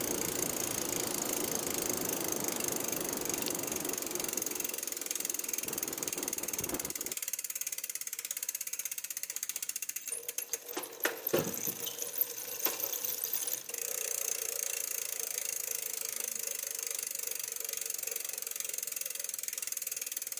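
Bicycle rear-hub freewheel ticking steadily as the bike coasts, with a few louder irregular knocks and rattles near the middle.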